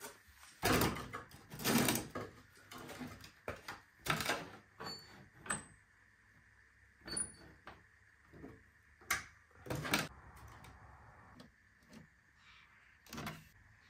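Irregular clunks, knocks and clicks of hands working on car parts, a dozen or so separate strikes with short quiet gaps between them. The loudest come about a second in, near two seconds, around four seconds and again around nine and ten seconds.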